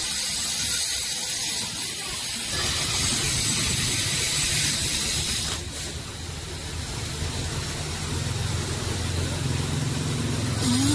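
Steady hiss of outdoor background noise, joined by a low rumble about two and a half seconds in.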